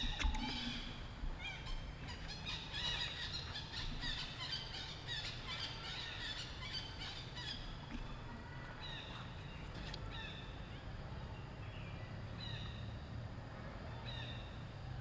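Short, high-pitched animal calls repeated many times, thick and overlapping at first and then coming singly every second or two, several of them falling in pitch.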